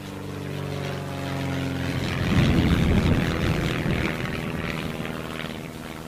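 Propeller-driven aircraft engine droning steadily, then swelling into a loud, rough rumble about two seconds in that slowly fades away.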